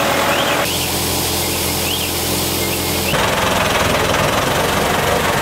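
Ford 6610 farm tractor's diesel engine running steadily, with a constant rumbling hum; the tone shifts abruptly twice, about a second in and about three seconds in.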